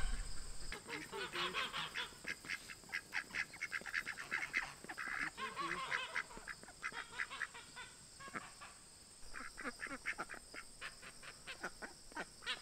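A flock of domestic ducks and geese calling: many short quacks and honks in quick succession, easing off for a moment about eight seconds in before picking up again.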